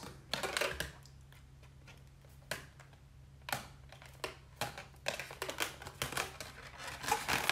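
Irregular light taps and clicks of a felt-tip marker drawing on an inflated latex balloon, with the balloon's rubber rubbing and squeaking in the hands. The taps come more often in the second half.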